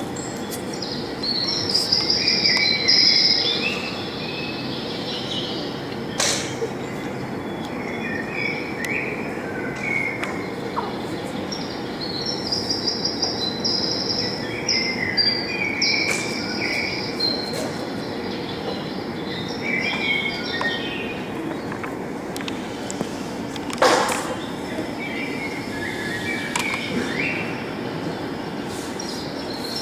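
Birds chirping in short repeated trills over a steady low background rumble. A sharp knock sounds about six seconds in, and a louder one later on.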